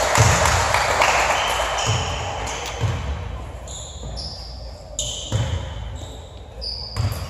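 Basketball bouncing on a hardwood gym floor in a few scattered thumps, with short high squeaks of sneakers on the court.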